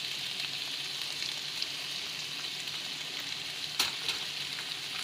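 Chicken strips, onion and capsicum sizzling steadily in a hot wok over high heat, with one sharp knock nearly four seconds in.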